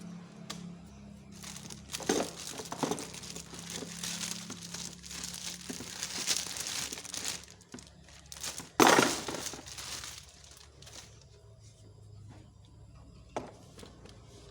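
Packaging being crumpled and crinkled by hand, in crackling spells with sharp crackles, one loud burst of crinkling about nine seconds in, then quieter handling and a single click near the end.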